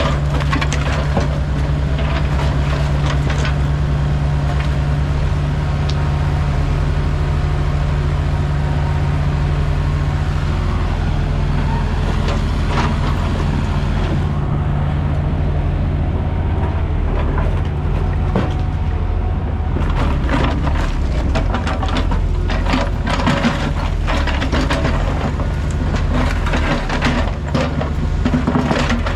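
Heavy diesel equipment running steadily, with scattered knocks and clatter that get busier in the last third.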